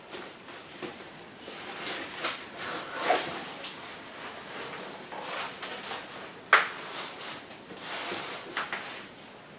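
Cybex Mios compact stroller being handled through its fold: frame joints clacking and fabric rustling as it is opened out and folded again, with one sharp click about two-thirds of the way through, the loudest sound.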